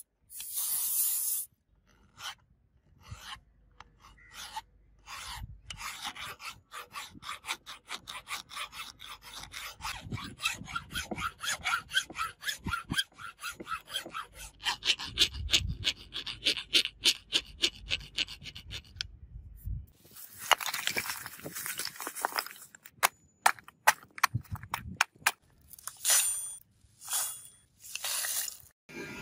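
Hand filing on a steel axe head held in a vise: a flat file rasping across the metal in a long run of quick back-and-forth strokes, with a few short pauses.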